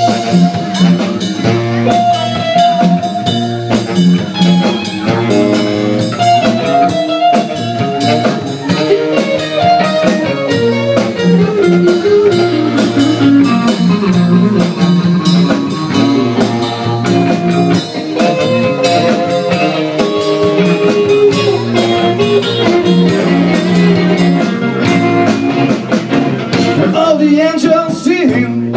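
Live blues-rock band playing an instrumental break: electric guitar, electric bass and drum kit, with a lead melody line bending up and down in pitch over the rhythm section.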